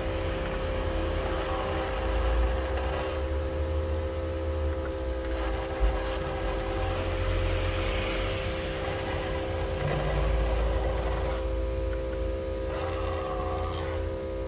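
A small electric motor runs steadily with a constant hum, while scraping noise swells and fades as a handheld electric glue-removal tool works over a phone LCD's glass. A single sharp click comes a little before the middle.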